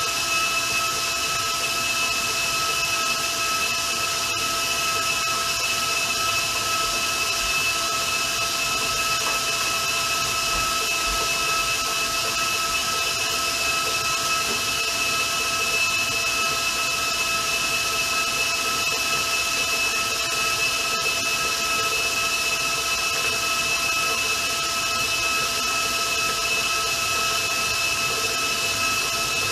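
Electric mixer running steadily at high speed with a constant motor whine, beating royal icing that is still thin on its way to stiff peaks.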